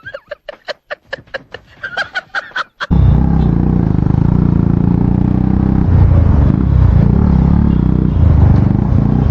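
Quiet ticking, about five clicks a second, for the first three seconds, then the exhaust-less KTM Duke 250's single-cylinder engine cuts in loud and runs on under riding, swelling a couple of times.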